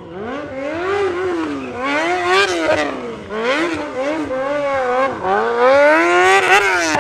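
Sport bike engine revved up and down over and over, roughly once a second, as the rider works the throttle through a circling drift. The tyre noise on the asphalt grows louder near the end.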